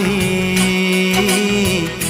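Hindi film song: a singer holds one long note over the accompaniment, the pitch wavering slightly near the end.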